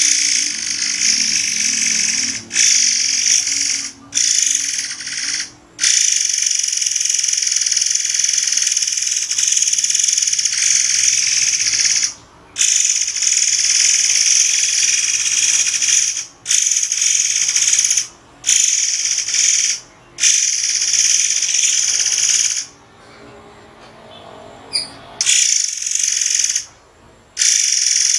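Recorded song of a murai air for songbird training: a shrill, high buzzing trill held for several seconds at a time and broken by short pauses.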